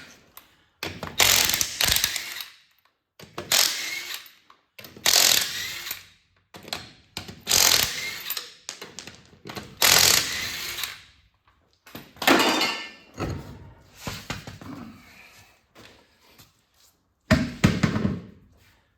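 Tools working on the rusty underside of an old car: about seven separate clattering, noisy bursts, each lasting about a second, coming roughly every two seconds, with a longer pause before the last one.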